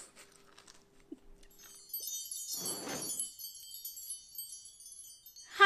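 Sparkling wind-chime sound effect for the channel's intro card: a shimmer of high tinkling chimes starting about a second and a half in, with a short whoosh through the middle, fading out just before the end.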